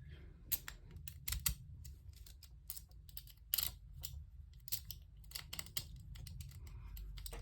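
Lock pick working inside a pin-tumbler lock's keyway: irregular small metallic clicks and scrapes as the pins are manipulated under tension, shortly before the lock opens.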